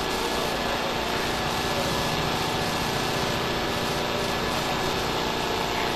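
Steady background drone of a running engine or machine, with an even hiss and constant loudness.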